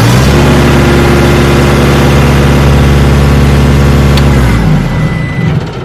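Skid steer engine running steadily just after starting, then cutting out about four and a half seconds in.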